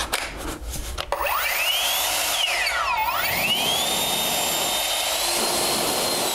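Aoetree 20 V cordless brushless leaf blower spinning up about a second in, with a whine rising in pitch over rushing air. It eases off and drops in pitch around three seconds, then spins back up to a steady high whine that steps up a little near the end. A few clicks come before it starts.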